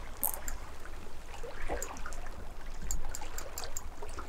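River water lapping and trickling at the bank, with a low wind rumble on the microphone and scattered small ticks.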